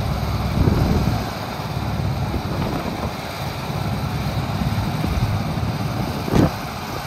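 Golf cart driving, a steady low rumble with wind buffeting the microphone, and a single thump about six seconds in.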